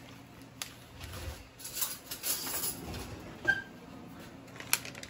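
Plastic bag of crumbled cotija cheese rustling faintly as it is handled and tipped, with a few light clicks.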